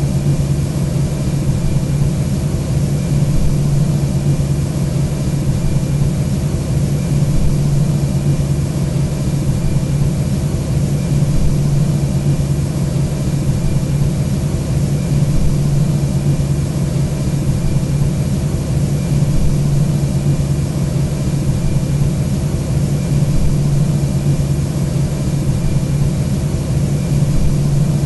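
Steady flight-deck background noise of an Airbus A320 in flight: a constant low hum under an even hiss of airflow, unchanging throughout.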